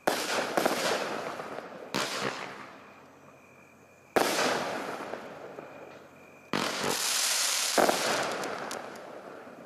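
Fireworks going off: a string of sharp bangs, each fading out in a long echo. Later a hissing, crackling burst comes with another bang, followed by scattered crackles.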